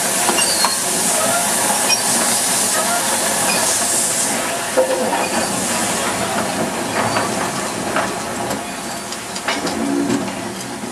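Steam locomotive passing slowly with a steady hiss of steam, then its coach rolling by, with scattered clanks from the wheels and couplings. The hiss is strongest at first and fades as the train moves off.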